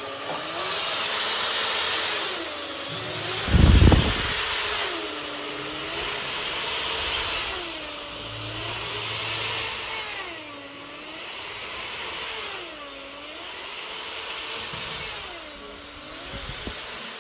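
Handheld power tool flaring the copper tube ends of a condenser coil. Its motor spins up, runs for about a second and winds down again, over and over about every two seconds. A short low thump comes about four seconds in.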